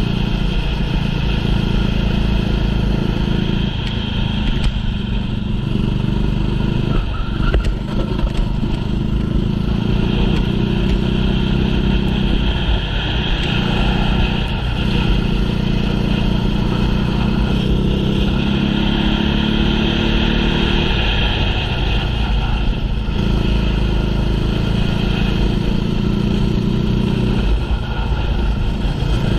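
A small racing engine running hard, its pitch rising and dipping again and again as the throttle is opened and lifted through the corners.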